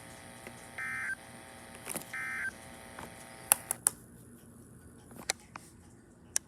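Two short buzzy data bursts of the NOAA Weather Radio SAME end-of-message code, each about a third of a second long and a second apart, closing the weekly test broadcast. A few sharp clicks follow, and the broadcast hiss cuts off about four seconds in.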